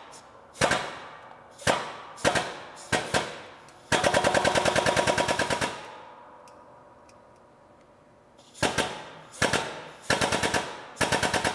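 Hydraulic shop press being pumped in short goes while it presses the 3-4 synchronizer hub onto a T56 transmission main shaft's splines: a few single sharp metallic clicks, then runs of rapid, even pulsing about four seconds in and again near the end.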